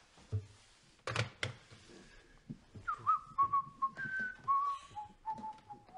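Someone whistling a short tune of single notes that step downward in pitch, starting about three seconds in, after two sharp clacks about a second in.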